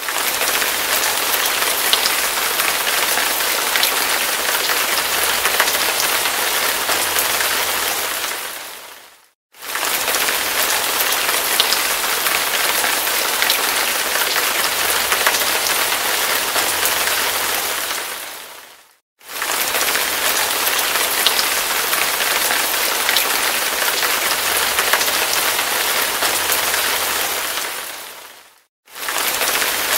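Heavy rain falling hard: a steady dense hiss with scattered sharper drops. About every nine and a half seconds the sound fades away to silence and comes straight back, three times, as a short recording loops.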